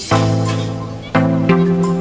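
Background music: held chords that change abruptly about every half second to a second.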